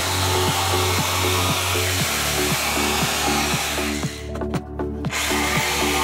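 Makita electric jigsaw running as it cuts plywood, breaking off for about a second around four seconds in, over background music with a steady beat.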